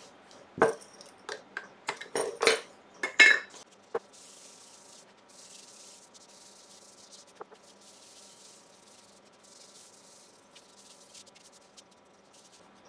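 Metal tin of microcrystalline wax being handled, with several sharp metallic clinks in the first few seconds. Then comes a faint, steady rubbing as the wax is wiped onto a turned sycamore bowl with a pad.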